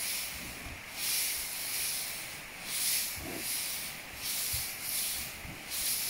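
Loose straw rustling in repeated bursts, about one a second, as calves root and toss it about with their heads.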